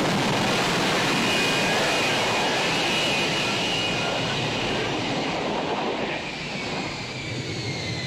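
F-35B fighter jet hovering on its engine and lift fan, running loud and steady with a high whine over the noise. Over the last few seconds the whine slides down in pitch and the level eases as the jet settles onto the runway.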